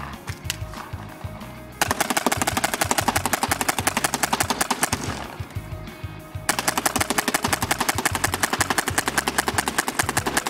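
Tippmann X7 Phenom paintball marker firing rapid semi-automatic shots, a fast string of sharp pops. The first string starts about two seconds in and tails off around five seconds; a second long string starts about six and a half seconds in.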